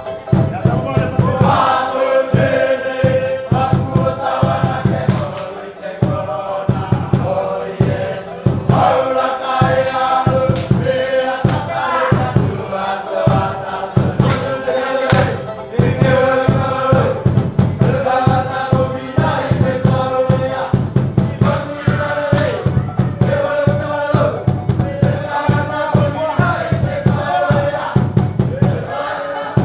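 Music: a group of voices singing together over a steady percussive beat.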